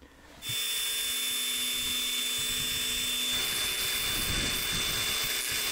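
Small power grinder's abrasive disc sharpening the tip of a steel drift punch. A steady grinding whine starts about half a second in.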